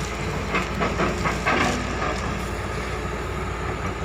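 Heavy diesel excavator engines running hard under load, with irregular metal clanks and short squeals in the first two seconds, as the overturned excavator is hauled back upright.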